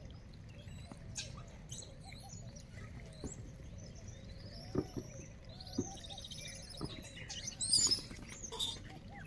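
Birds chirping, loudest in a quick run of calls near the end, with a few soft knocks and steady low background noise.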